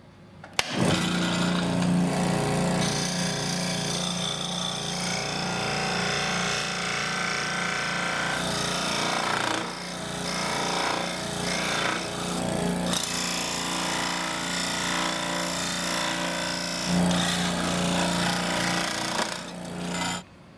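Mastercraft scroll saw started with a click, its reciprocating blade running steadily and cutting a corner notch out of a 1x2 wood board. It cuts off suddenly near the end.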